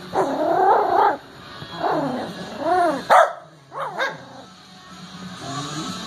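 A dog barking and yipping: about six short calls in the first four seconds, the first drawn out and rising in pitch, then a last short one at the end.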